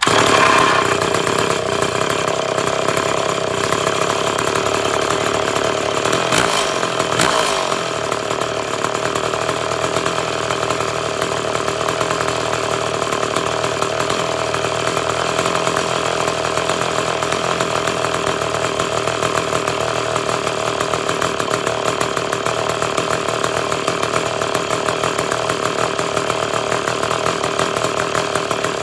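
McCulloch two-stroke chainsaw running at a steady idle while its low-speed carburettor jet is being tuned, with two short surges about six and seven seconds in.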